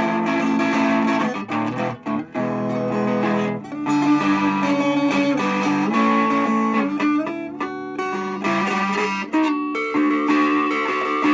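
Guitar music: plucked notes and chords that change every second or so, with brief breaks about two seconds in and again near eight seconds.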